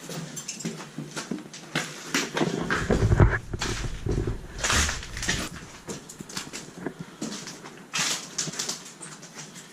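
Footsteps and scattered knocks from someone walking up the stairs, with a few heavy low thumps about three to five seconds in.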